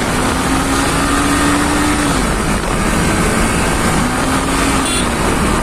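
Yamaha R15 V3's single-cylinder engine running on the move, its note dipping and recovering twice with the throttle, under heavy wind rush on the microphone. A brief high-pitched sound comes near the end.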